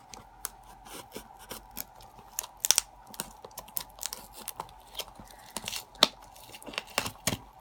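A cardboard package being handled and its tape torn at: irregular crackles, scrapes and taps, with a faint steady hum underneath.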